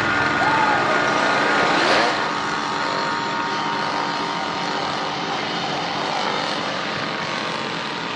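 Two-stroke chainsaw engine running steadily, revving up briefly about two seconds in.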